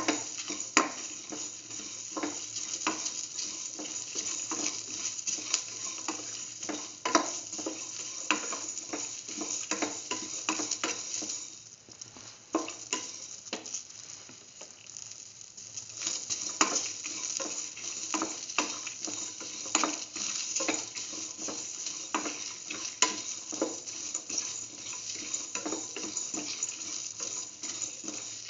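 Onion pieces and whole spice seeds sizzling in hot oil in a metal pan while being sautéed, a spatula scraping and tapping the pan many times as it stirs. The sizzle and stirring die down for a few seconds near the middle, then pick up again.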